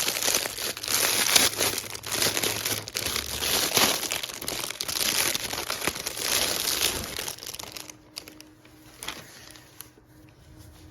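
Plastic packaging crinkling and rustling as it is handled and opened, coming in waves for about eight seconds, then dropping to a few faint taps and rustles near the end.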